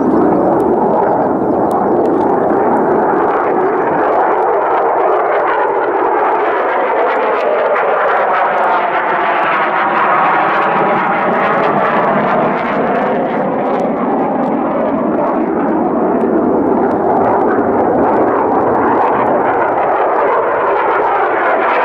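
F-16 Fighting Falcon jet engine heard loud and steady as the fighter flies low past, with a sweeping, phasing quality in the middle as it comes closest.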